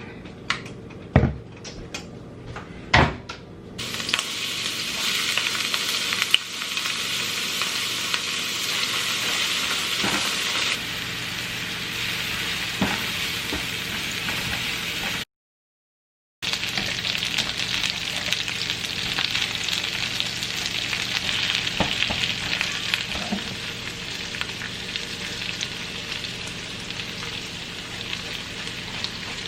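Food sizzling and frying in a hot pan, with a couple of sharp knocks from pan or utensil in the first few seconds before the sizzle starts about four seconds in. The sizzle cuts out completely for about a second midway, then resumes.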